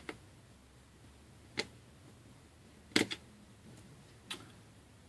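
Small, sharp clicks and taps of tiny repair tools and screws against the metal and plastic inside an opened iPhone 5 as its screws are taken out. There are four or five isolated clicks spread a second or so apart, the loudest, a quick double click, about three seconds in.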